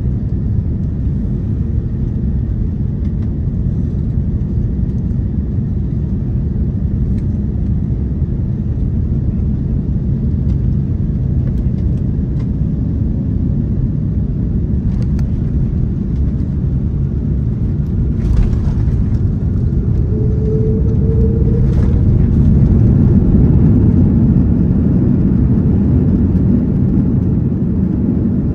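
Steady low cabin rumble of an Airbus A330-343's Rolls-Royce Trent 700 engines and airflow, heard from inside the passenger cabin during landing. Two short clicks come in the later half, and the rumble swells for several seconds near the end.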